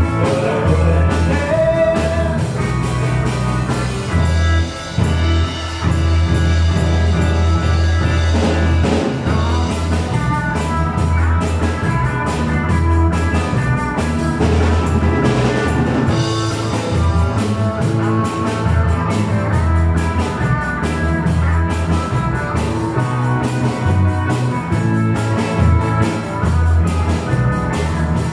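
Live rock and roll band playing: electric guitars, bass guitar and drum kit keeping a steady, driving beat.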